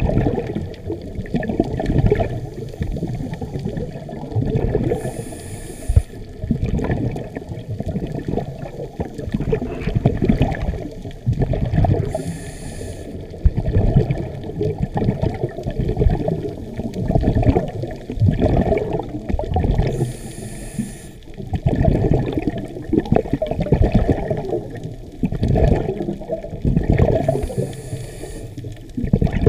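A scuba diver's breathing heard underwater: surging, rumbling rushes of exhaled bubbles, with a short high hiss of the regulator about every seven or eight seconds.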